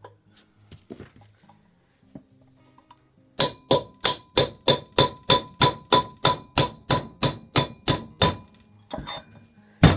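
Hammer blows driving a wheel bearing out of a motorcycle's rear wheel hub: a quick, even run of about seventeen strikes, roughly three a second, each with a ringing metallic note, starting a few seconds in, then a pause and one harder blow near the end. The bearing is being knocked out from the other side and is just coming free.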